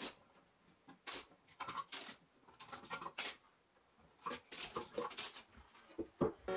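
Metal bar clamps being released from a glued-up wooden frame and put down on a tiled floor: scattered clicks, clinks and knocks, with a sharper knock just before the end.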